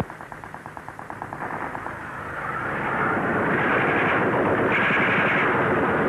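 Machine-gun fire: a rapid burst of about ten shots a second for the first two seconds, then a louder, dense din of battle gunfire that builds and holds.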